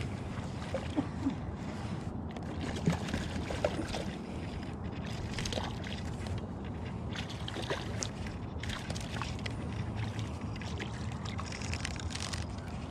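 A hooked trout splashing and swirling at the water's surface close to the bank while being reeled in, with scattered small splashes and clicks at irregular moments over a steady low outdoor rumble.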